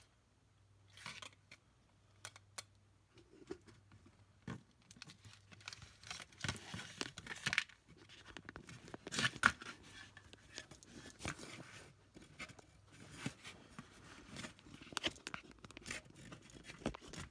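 Handling noise from plastic headphones and their wires being moved about on a cardboard work surface: irregular clicks, light knocks and scraping rustles, with a louder knock a little past halfway.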